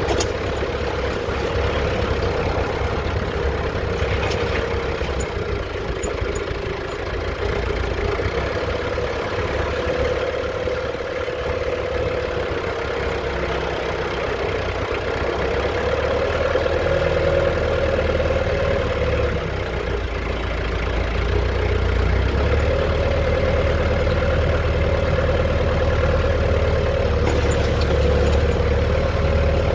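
A vehicle engine running, its pitch stepping up and down every few seconds, with wind rumbling on the microphone.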